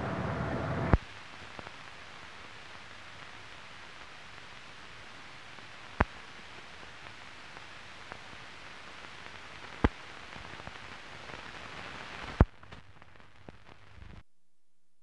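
Steady hiss of an old newsreel's optical film soundtrack with no program sound on it, broken by a few sharp clicks. The louder sound before cuts off with a click about a second in, and the hiss stops abruptly near the end.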